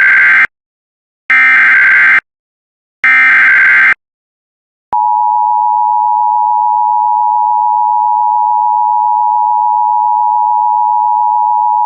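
Emergency Alert System SAME header: three short bursts of warbling digital data tones, about a second each, announcing a new alert. After a second's pause comes the EAS two-tone attention signal, a steady dual tone held for about eight seconds.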